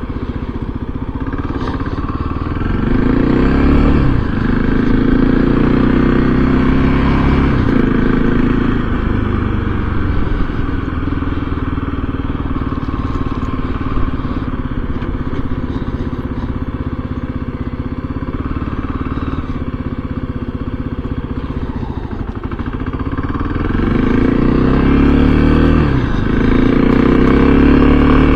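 Motorcycle engine heard from a helmet microphone while riding. It accelerates through the gears about three seconds in and again from about 23 seconds, and runs steadily in between, with wind rushing over the microphone.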